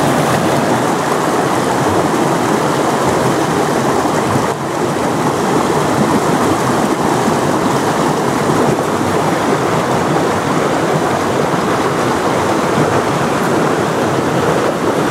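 Stream water rushing through a narrow chute between boulders in a small cascade: a loud, steady rush.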